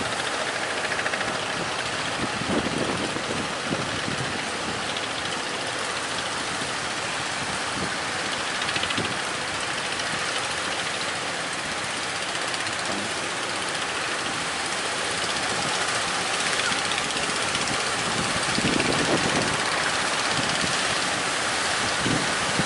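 Steady roar of strong wind and rough sea water, with gusts buffeting the microphone several times.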